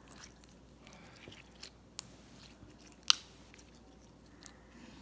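Gold glitter clear slime being squeezed and stretched between the hands, making small wet clicks and pops, with two sharper pops about two and three seconds in, the second the loudest.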